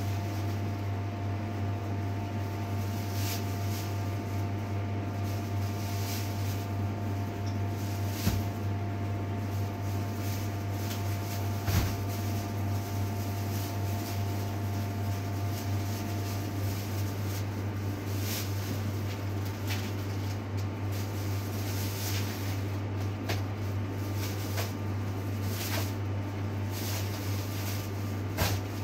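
A steady low machine hum with a faint high whine, part of which stops just past halfway. Over it come scattered light crinkles and three sharp knocks.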